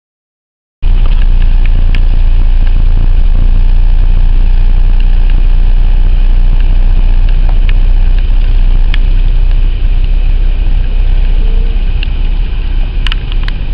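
A car driving along a road, heard from inside the cabin: a loud, steady low rumble of engine and road noise that starts suddenly about a second in, with a few faint clicks near the end.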